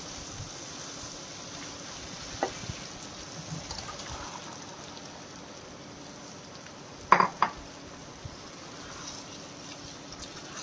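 Spoon stirring boiled potatoes in tomato masala in a kadhai, with a few light knocks and a sharp double clack of metal about seven seconds in.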